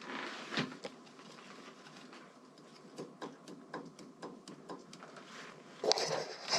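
Irregular light metallic clicks and taps, a few a second, from hands working the pushrods and valve train of a Harley-Davidson Evolution engine's top end, with a louder scraping rattle near the end.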